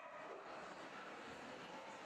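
Steady background hubbub of a crowded hall: many distant voices blending together, faint and even.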